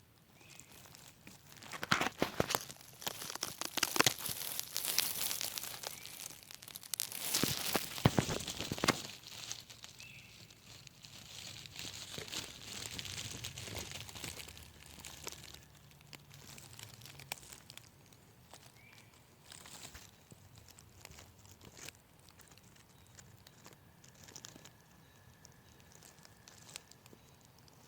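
Crackling, rustling handling noise from the camera being moved around, dense and loudest in the first third, then thinning out to scattered faint clicks.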